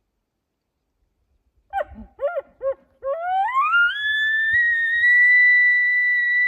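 An elk bugle: three short, low arched notes, then a long whistle that rises steeply, holds high for about three seconds and breaks off in a sharp downward drop at the end.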